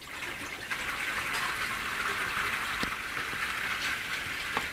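Water being poured out in a steady, continuous gush and splash, starting shortly after the start and stopping near the end.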